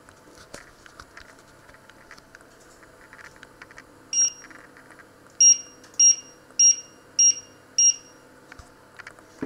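Touch controls of a glass-top electric hob beeping as its keys are pressed to set the heat level: six short, high beeps, one on its own about four seconds in, then five in an even run about 0.6 s apart.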